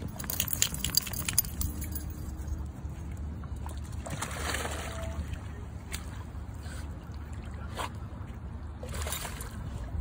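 Dog wading into a pond and starting to swim: water splashing and sloshing in short bursts about four to five, eight and nine seconds in. A metallic jingle of its collar and leash clip comes in the first second and a half, over a steady low rumble.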